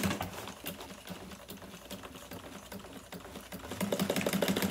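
Juki industrial sewing machine stitching through sail cloth. It ticks over slowly, stitch by stitch, for most of the time, then runs faster and louder again about four seconds in.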